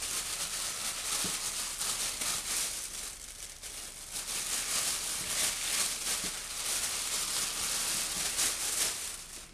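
Plastic roasting sleeve crinkling and rustling as potatoes are shaken and mixed with spice inside it. The crinkling eases off briefly about three seconds in, then picks up again.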